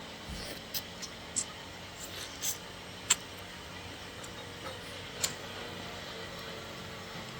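Cutlery clinking against plates and dishes several times, the sharpest clink about three seconds in, over a steady background hum.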